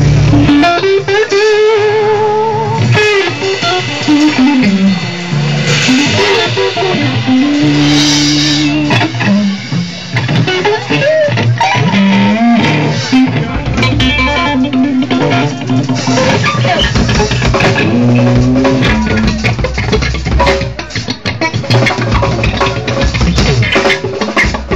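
Electric guitar played loud in a live blues-rock instrumental passage, with long held notes that waver and bend, and drums behind it.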